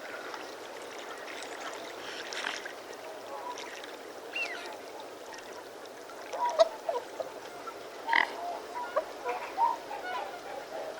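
Swans calling: scattered short calls at first, then a quick run of short calls in the second half. A steady hiss lies underneath.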